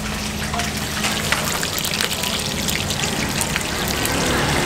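Liquid trickling and splashing, a steady watery hiss with many small clicks, from a pot of soup broth.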